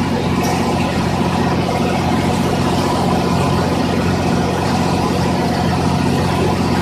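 An engine running steadily at idle: a constant low hum that does not change speed.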